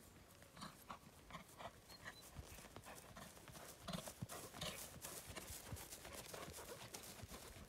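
Hoofbeats of a skewbald cob trotting on turf: a faint, even run of soft thuds and ticks that grows louder about halfway through as the horse comes near.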